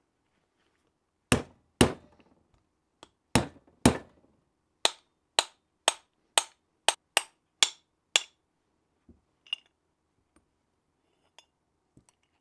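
Hammer tapping a wrist pin out of a two-stroke outboard's piston to free it from the connecting rod. About a dozen sharp strikes come roughly half a second apart, a little faster toward the end, then a few faint clicks.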